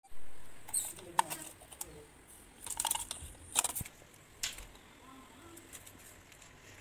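A plastic packet of binding paste crinkling and crackling as it is picked up and handled, in several short bursts.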